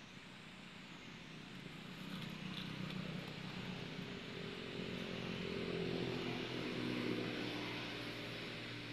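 A motor vehicle's engine passing by, growing louder to a peak about six to seven seconds in, then fading.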